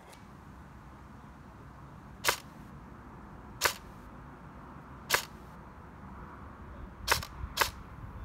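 LCT AK-74 airsoft electric gun firing five single shots, each a sharp click. The shots come a second or more apart, and the last two are close together.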